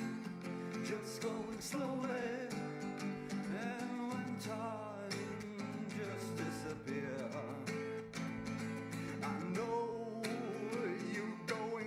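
Background music: a song with guitar accompaniment, a singing voice and a steady beat.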